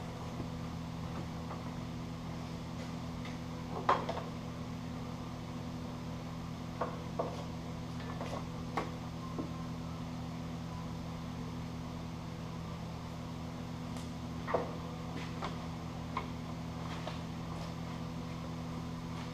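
Pickup truck engine idling steadily, with scattered clicks and knocks as the snow plow's electrical plugs are handled and pushed into their sockets.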